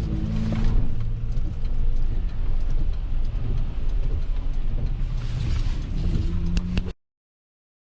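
Truck on the move: a steady low engine hum with road noise, cutting off suddenly about seven seconds in.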